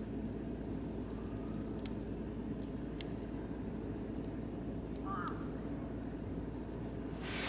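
Oak and beech wood fire burning in a barbecue grill, giving scattered sharp crackles over a steady low rumble. Near the end a louder hissing noise sets in.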